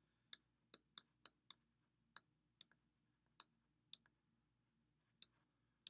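Computer mouse button clicking: about a dozen short, sharp clicks at an irregular pace as handwriting strokes are drawn with the mouse.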